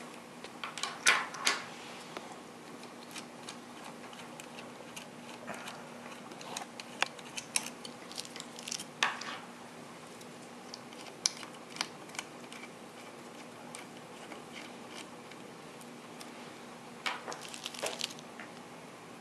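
Small hardware being handled on a carbon-fibre hexacopter frame: metal thumb screws and washers being unscrewed, lifted off and set down, and rubber isolation bushings pushed onto the posts. This gives scattered light clicks and taps, with short clattery clusters about a second in, around nine seconds and near the end.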